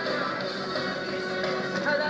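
Background music: a rock-style song with guitar, at a steady level.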